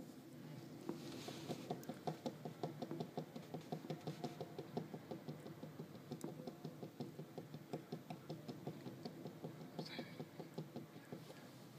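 Demolition excavator working on a building: rapid, even knocking at several blows a second over a low engine hum. The knocking starts about a second and a half in and eases off near the end.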